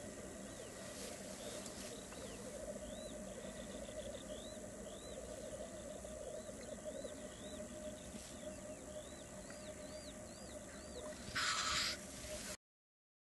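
Black grouse lek: the males' continuous low bubbling rookooing song, with short high arching notes from a smaller bird repeating every half second or so over it. Near the end comes a loud brief hissing call, then the sound cuts off suddenly.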